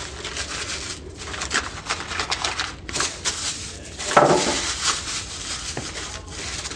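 Paper being crumpled by hand: dense crackling that comes in fits and starts, with a louder burst about four seconds in.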